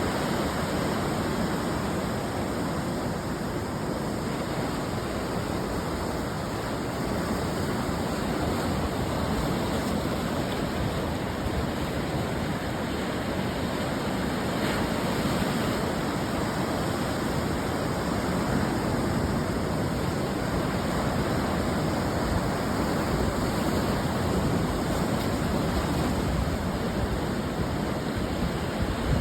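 Ocean surf breaking on a beach: a steady, dense wash of water noise that swells and eases gently as the waves come in.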